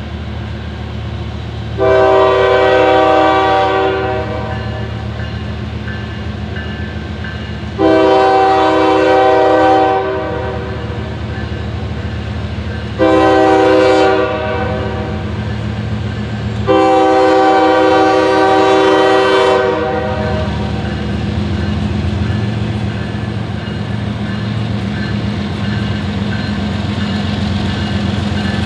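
Norfolk Southern GE ES44DC diesel locomotive's air horn sounding four blasts, long, long, short, long: the standard grade-crossing signal. A steady diesel engine drone runs under the horn and grows slowly louder as the train approaches.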